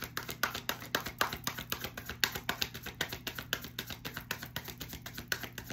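Tarot deck being shuffled by hand: a rapid, even run of card slaps and flicks, about eight to ten a second.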